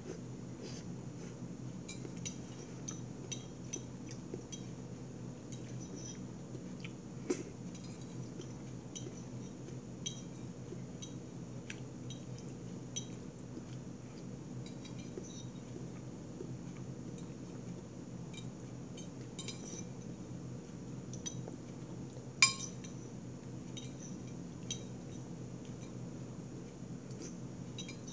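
A metal spoon clinks and scrapes against a ceramic bowl in scattered light taps, with one louder clink about 7 seconds in and the sharpest one about 22 seconds in, over a steady low hum.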